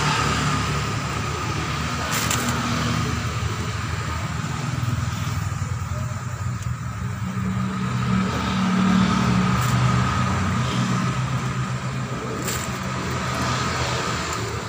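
A steady low engine hum that drifts slightly in pitch, with a thin steady whine above it. Three sharp clicks are spread through it.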